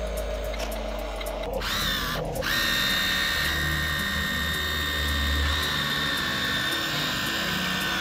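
Small electric motor of a toy vehicle whining at a steady high pitch. It starts about a second and a half in with a short rising whine, stops briefly, then runs steadily.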